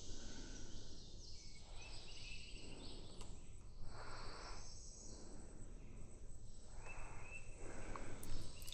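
Faint outdoor ambience with insects buzzing and chirping in short overlapping stretches that start and stop.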